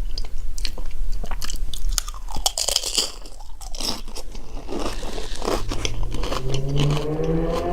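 Crunchy nacho chips bitten and chewed close to the microphone, with a run of sharp crackling crunches, and a low, rising hum joining in the last two seconds.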